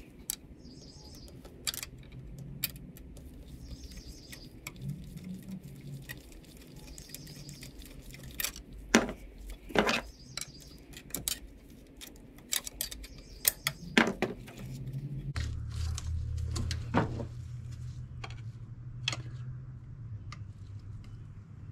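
Scattered clicks and clinks of a screwdriver working a metal hose clamp loose and a hose being handled, the sharpest clicks about nine and ten seconds in. A low steady hum comes up about two-thirds of the way through.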